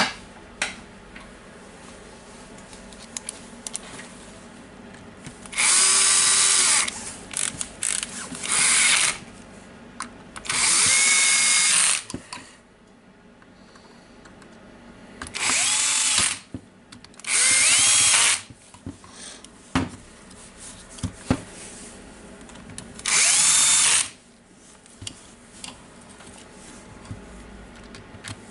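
Cordless drill driving screws into the plastic housing of a power tool: about six short runs of the motor, each spinning up with a rising whine and lasting from half a second to a second and a half, with small handling clicks between them.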